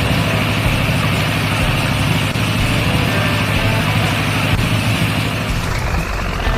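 Heavy truck engine running steadily, with a rising whine near the end.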